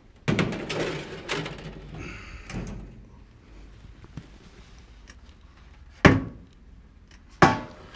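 Oven being loaded: clattering of the oven door and a metal baking tray for about two and a half seconds, then two sharp bangs about a second and a half apart.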